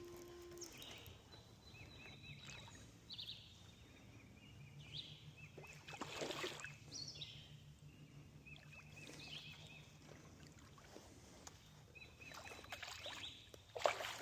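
Birds singing short whistled and trilled phrases again and again, over a faint low steady hum that comes in about four seconds in and fades out after eleven. There are two louder swishes, one about six seconds in and one near the end.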